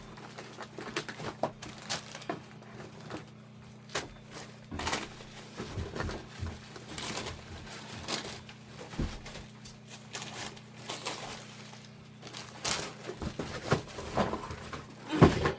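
Plastic bags and food packets crinkling and rustling as groceries are packed by hand, with many scattered knocks and clicks from items being handled.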